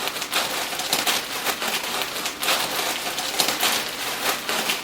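Chips being crushed inside their bag, a dense, irregular crunching and crackling of crisps and plastic.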